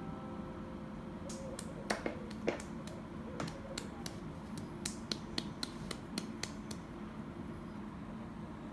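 Oil popping and spitting in a frying pan under stuffed bitter melon rings: a dozen or so sharp, irregular pops that die away near the end, over a steady low hum.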